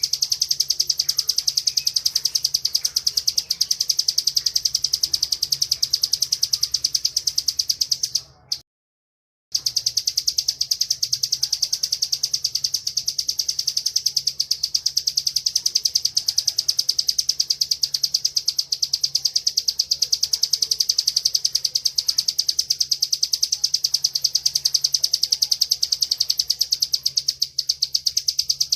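Bar-winged prinia (ciblek) singing a rapid, unbroken high-pitched trill, the long continuous "ngebren" song. The sound cuts out completely for about a second roughly a third of the way in, then the trill resumes.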